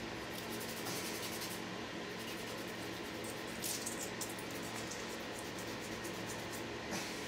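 Faint scraping and crackling of a bamboo tool worked under the flashing of a brittle expanding-foam casting as it is prised from its mould, with a few small crackles among the scraping. A steady low hum runs underneath.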